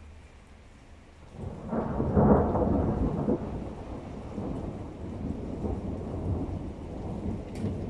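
Thunder: a clap begins about a second and a half in, is loudest just after, then rolls on as a long rumble that slowly fades.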